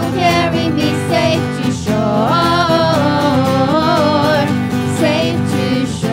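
Worship song sung by women's voices through microphones, with acoustic guitar accompaniment. The voices pause briefly just before two seconds in, then come back in held, gliding lines.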